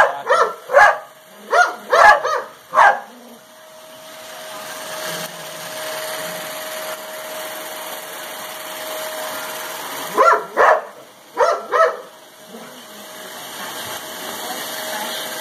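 A dog barks sharply at a running upright vacuum cleaner: a quick run of about six barks at the start, then two short bursts of barks about ten and eleven seconds in. Between the barks the vacuum's steady hum and thin whine carry on, getting louder near the end as it comes closer.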